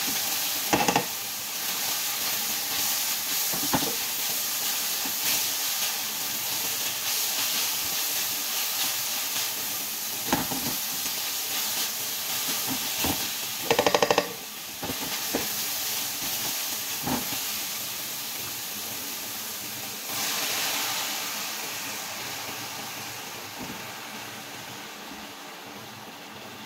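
Food frying in oil in a non-stick pan: a steady sizzle, with a few sharp knocks and a short rattling scrape of a silicone spatula against the pan as it is stirred. The sizzle slowly dies down over the last few seconds.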